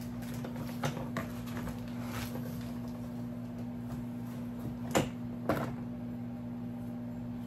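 Wooden dollhouse kit pieces being rummaged through and lifted in a cardboard box, with light scrapes and clicks and two sharp knocks about five seconds in, half a second apart. A steady low hum runs underneath.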